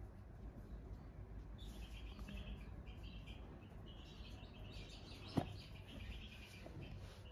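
Small birds chirping in rapid trills in two stretches, over a low background hum. A single sharp click about five seconds in, as the lid of the cardboard phone box is lifted off.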